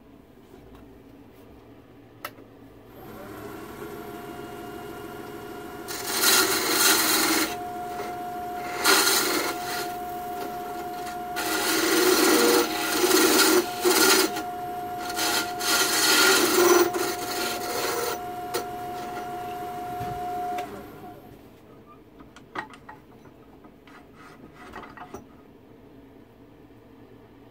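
A benchtop wood lathe's motor starts about three seconds in and runs with a steady whine, while a hand-held turning tool cuts the spinning wood blank in four loud bouts of scraping and shaving. The lathe runs down and stops about three quarters of the way through, leaving a few small clicks.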